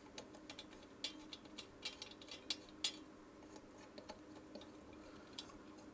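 Faint, irregular light clicks and taps of small metal parts being handled: head bolts being placed through the head gasket and cylinder head of a small Briggs & Stratton engine.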